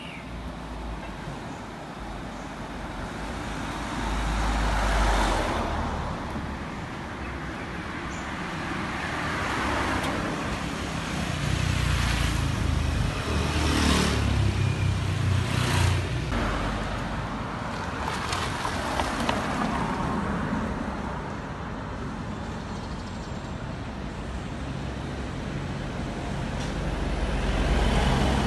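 Street traffic: motor vehicles passing one after another, the noise swelling and fading as each goes by over a low rumble, with a couple of sharp knocks near the middle.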